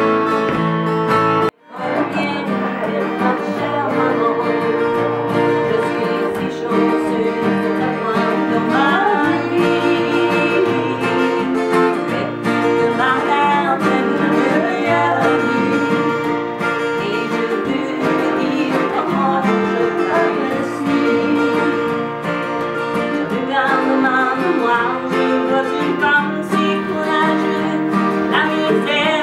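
Two acoustic guitars strumming together with a woman singing over them. The sound cuts out for an instant about a second and a half in.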